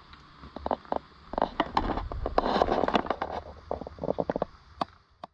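Crunching and scraping of a hiker scrambling over dry leaves and rock, many sharp crackles over a low rumble on the microphone; it cuts off suddenly near the end.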